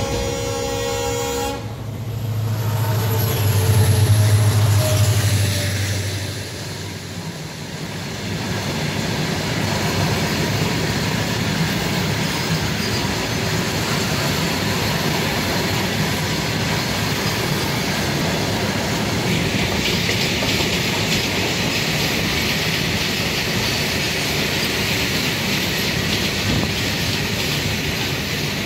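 Freight train of open wagons rolling past on the next track, its wheels rumbling and clattering steadily on the rails, with more hiss in the second half. At the very start a train horn sounds and cuts off. Then a loud low hum swells and fades over the next few seconds before the wagons' rumble takes over.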